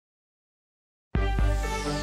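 Silence for about a second, then electronic intro music starts suddenly, with a high sweep falling in pitch over sustained tones.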